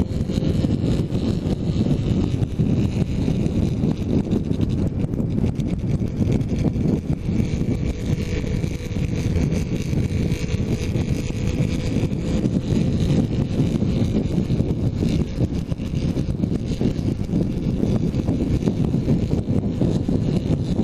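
Heavy wind buffeting on a helmet-mounted GoPro's microphone while riding a motorcycle at road speed: a dense, steady rumble with a faint steady engine note beneath it.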